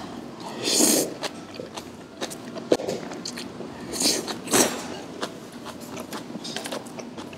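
Close mouth sounds of eating spicy braised monkfish with bean sprouts: crunchy chewing with many small clicks, and two louder slurps about a second and about four seconds in.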